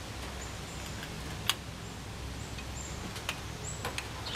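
A few sharp clicks from hand tools on a semi truck air-line glad hand fitting, the loudest about a second and a half in, over a low steady hum. A bird chirps faintly and briefly several times.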